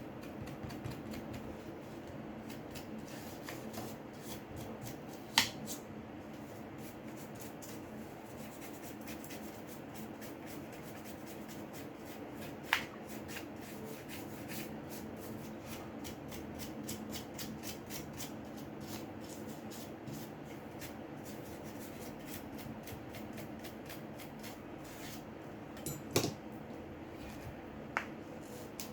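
Small clicks, taps and rubbing of hand tools and parts on a Samsung Galaxy J6 phone being worked on by hand, with four sharper clicks standing out over a steady low hum.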